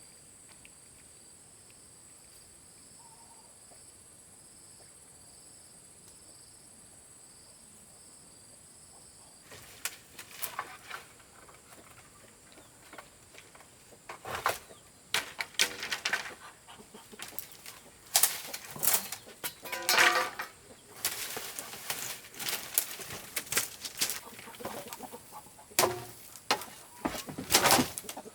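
Chickens flapping their wings and clucking in a string of loud bursts, starting about a third of the way in after a quiet stretch with only a faint, steady high-pitched hum.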